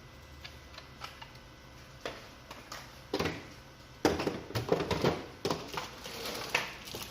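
Handling clatter: scattered light clicks, then from about four seconds in a dense, louder run of knocks and rattles as items are handled and set down.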